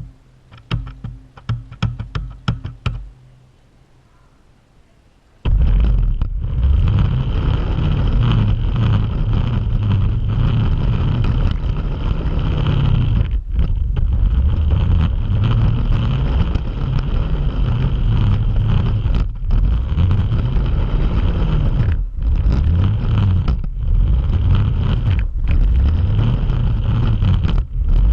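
Radio-controlled car driving, heard from a camera riding on it: a loud, even rumble and rush of motor and wheels that starts suddenly about five seconds in, with a few brief dropouts. Before it, a quick run of sharp clicks.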